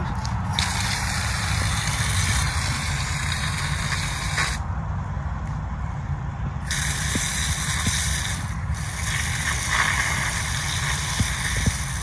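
Garden hose spray nozzle spraying water onto freshly dug ginger rhizomes, washing the soil off them. The spray hisses in two long spells: the first stops about four and a half seconds in, and the second starts again a couple of seconds later, with a brief break partway through.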